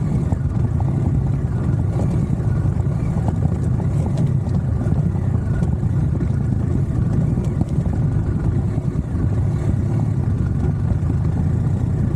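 Adventure motorcycle engine running steadily while riding, heard as a constant low rumble with a noisy haze above it.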